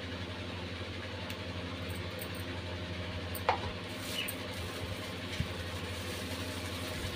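A steady low machine hum, with a short high squeak about three and a half seconds in.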